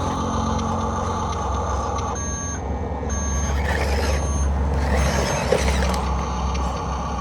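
A vehicle reversing alarm beeping in short repeated beeps over a steady low engine drone.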